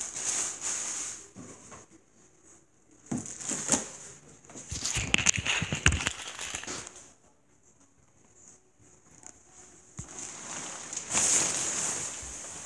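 Rustling and crinkling handling noise in several bursts, with a few sharp clicks about five to six seconds in.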